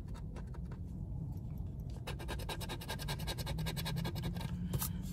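Scratcher tool scraping the coating off a scratch-off lottery ticket in short strokes, scattered at first, then rapid and steady from about two seconds in.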